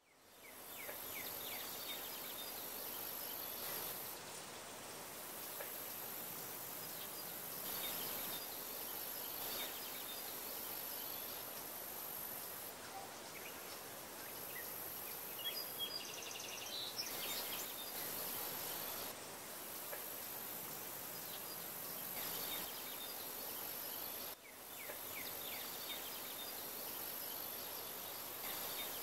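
Faint, steady background hiss of room tone, with a high-pitched band that drops out and returns at several cuts, and a brief faint chirping sound about halfway through.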